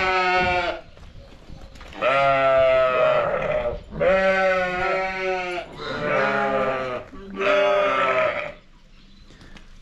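Sheep bleating over and over: five long bleats, one about every two seconds.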